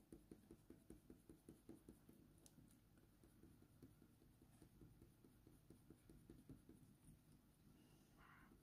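Faint, quick strokes of a Faber-Castell Polychromos coloured pencil on hot-press watercolour paper, a soft scratching at several strokes a second as colour is blended in.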